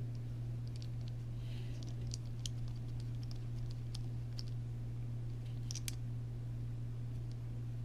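Scattered light clicks and ticks of tiny metal ball studs and small kit parts being handled and fitted, a little louder near the end, over a steady low electrical hum.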